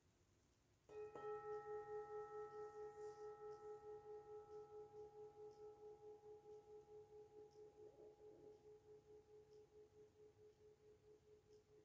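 A metal singing bowl is struck once about a second in and rings with a long, slowly fading tone that pulses about four times a second.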